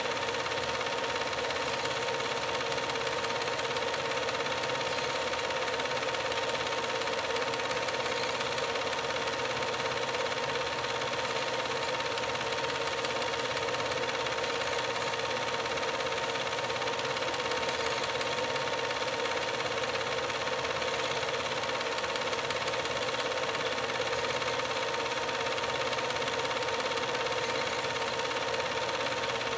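Steady mechanical running noise: an unchanging hiss and hum with a constant mid-pitched whine.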